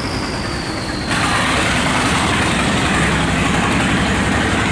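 Engine of a wooden riverboat running steadily as it passes close by, with the wash of water along its hull. It gets louder about a second in.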